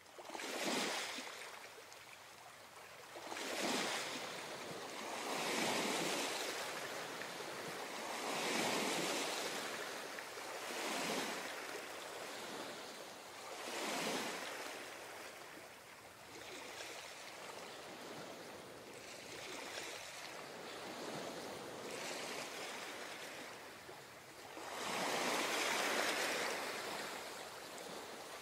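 Water waves washing in, a swell of rushing noise every two to three seconds, with a longer, stronger swell near the end.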